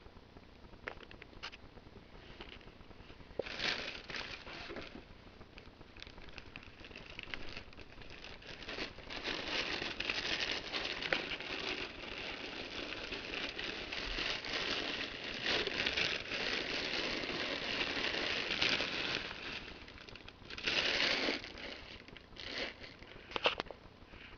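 Dry hay rustling and crackling as rabbits root and feed in it, in a dense spell through the middle with louder short bursts before it and near the end.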